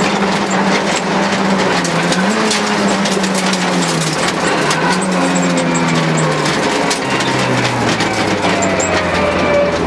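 Rally car's engine heard from inside the cabin on a gravel stage, running at a wavering, fairly steady pitch, with many small clicks of gravel hitting the car. About seven seconds in, the engine note drops as the car slows.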